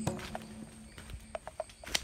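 A few uneven footsteps and light cracks on the jungle floor, as someone walks through undergrowth, with one sharper snap near the end. A held music note fades out at the start.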